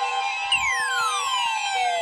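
Electronic emergency alert tones from a broadcast: a steady tone near 1 kHz, joined about half a second in by a pitched sweep sliding steadily downward, heralding a newly issued severe thunderstorm warning.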